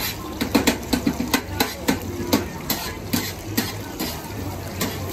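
Steel tongs clicking and scraping against a non-stick electric frying pan as pan-fried dumplings are turned, in quick, irregular clicks over a steady hiss of frying.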